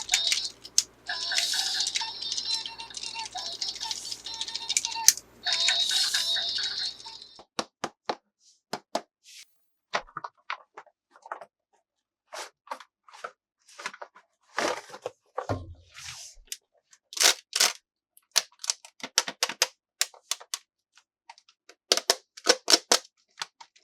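A battery toy plays a tinny electronic tune over a low motor hum, which stops suddenly about seven seconds in. After that come scattered sharp clicks and crinkles of plastic toy pieces and packaging being handled.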